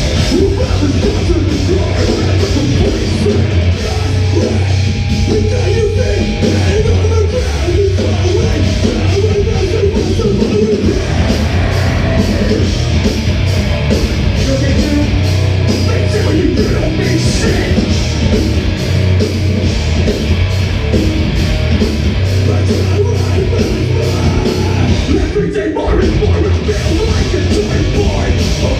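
A live rock band playing loud, heavy music: a drum kit keeping a steady beat under guitars, with singing.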